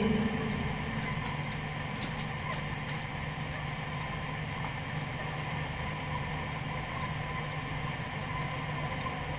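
Steady low hum and hiss of a live recording's background in a pause in Quran recitation, with the last of the voice's echo dying away at the very start.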